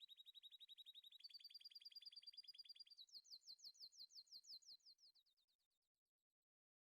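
A bird's faint, rapid trill in three phrases: a steady run of quick notes, a higher run about a second in, then quick falling notes from about three seconds in that fade out.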